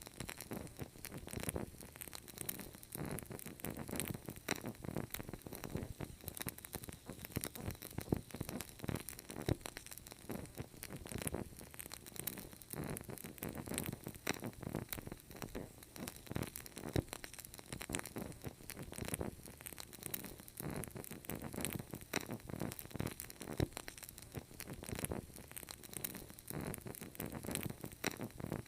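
Burning candle, its wick crackling with a dense, steady stream of small pops and ticks.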